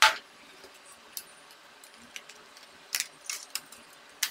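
Clicks and light clatter of hard laptop parts being handled during disassembly of a Dell Latitude E6410: one loud sharp snap at the start, then several smaller clicks and clinks.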